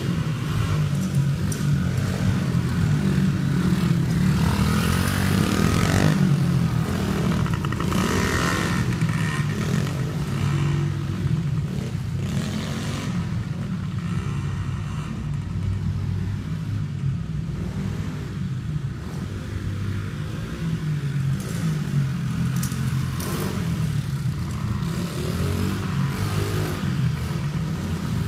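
Small 70cc four-stroke dirt bike engine (Baja Dirt Runner) running as it rides the track, revving up and easing off several times, inside a large steel-framed indoor arena.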